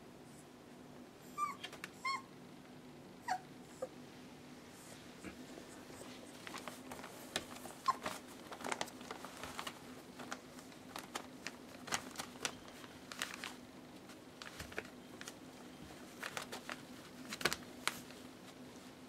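Young puppies give a few short, high whimpers in the first few seconds, then scrabble and rustle about on the newspaper lining their whelping box, with many quick scratches and crinkles. A faint steady low hum runs underneath.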